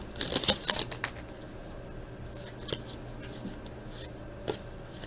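Trading card pack being opened and the cards handled: a cluster of light clicks and rustles in the first second, then a couple of single soft ticks, over a faint steady low hum.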